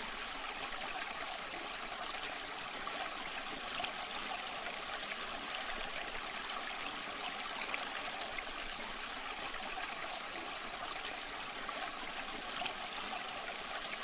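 Small tabletop cement waterfall fountain running: thin streams of water falling from bowl to bowl and into the basin, a steady trickling splash.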